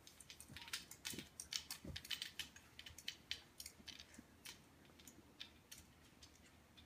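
Faint, irregular light clicks and taps from a baby bouncing in a Jolly Jumper baby bouncer, with a few soft thumps in the first two seconds as her feet land on the wooden floor.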